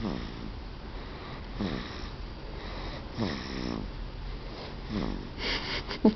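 A pet snoring in slow, regular breaths, about one snore every second and a half, each falling in pitch; a short, louder sound comes near the end.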